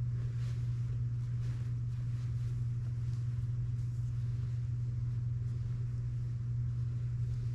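Steady low hum throughout, with faint rustling of clothing being handled.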